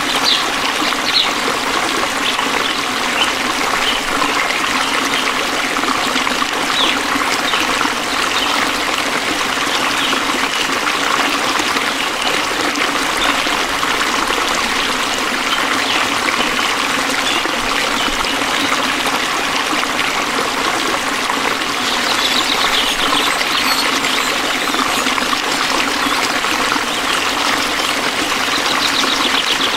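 Stream water trickling steadily. Short high chirps rise above it a few times at the start, again about two-thirds of the way through, and near the end.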